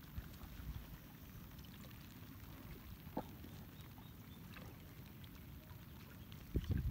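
Low rumble of wind with water lapping against an inflatable boat, a faint click about three seconds in, and a louder thump near the end.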